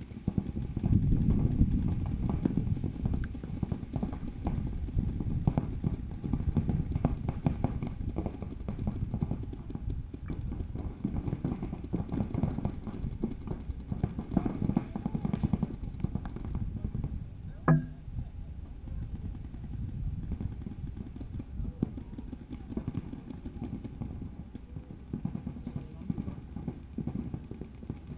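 Paintball markers firing in rapid strings of shots across the field, over a low rumble. About eighteen seconds in comes one short, loud pitched sound.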